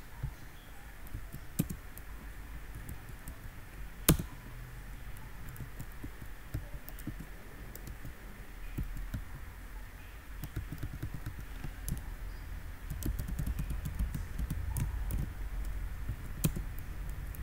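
Computer keyboard typing and mouse clicks: scattered keystrokes over a low steady hum, with two sharper clicks about four seconds in and near the end.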